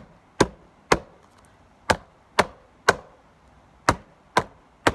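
Table drumming: a hand slapping a tabletop in groups of three even strikes, about two a second, with a one-beat rest after each group. The groups follow a dot rhythm, the left hand playing one group and the right hand the next.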